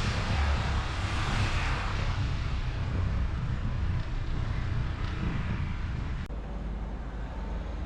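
Wind and riding noise from a bicycle dashcam on a wet road, doubled by two overlapping copies of the same audio track into a jet-like rush, an 'afterburner' sound. About six seconds in it cuts off with a click, leaving only a low rumble.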